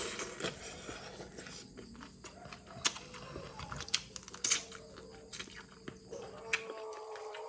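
A dog howling in the background: one long drawn-out howl that rises and grows stronger near the end. Scattered sharp clicks sound over it, the loudest about three and four and a half seconds in.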